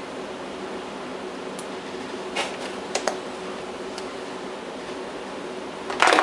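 A few light clicks and taps from handling laptop parts, over a steady background hiss with a faint hum. A louder, brief crackle comes at the very end.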